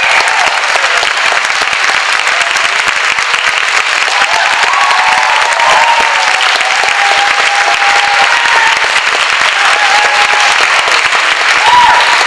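Theatre audience applauding steadily and loudly at a curtain call.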